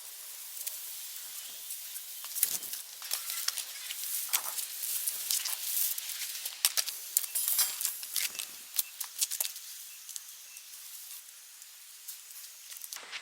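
Rustling with many small sharp clicks and crackles over a steady high hiss, busiest in the middle and thinning out near the end.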